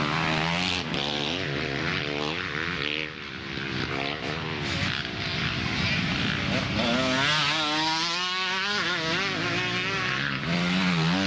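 Motocross bikes passing one after another through a dirt-track corner. Their engines rev up and down as the riders work the throttle, with a brief lull about three seconds in and a strong rising rev near the end.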